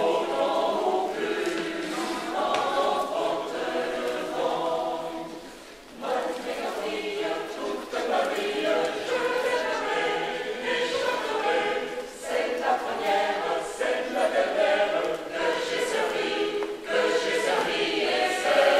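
Mixed choir of men's and women's voices singing together in sustained phrases, with a short breath pause about six seconds in.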